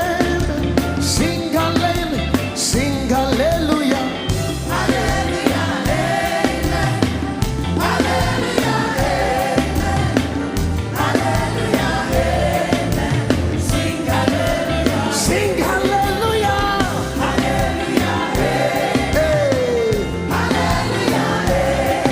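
Live gospel worship music: a band with a strong bass beat, and voices singing along.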